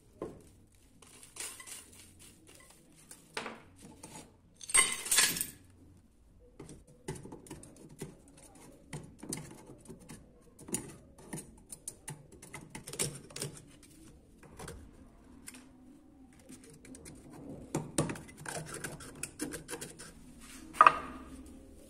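Handling sounds from small metal oil-lamp parts on a wooden workbench: scattered clicks, taps and scrapes. There is a louder scrape about five seconds in and a sharp tap near the end.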